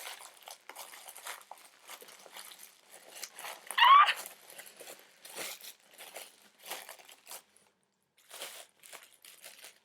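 Wrapping paper crinkling and tearing as a gift-wrapped item is ripped open by hand, in short irregular rustles. About four seconds in comes a brief, high-pitched rising squeal, the loudest sound.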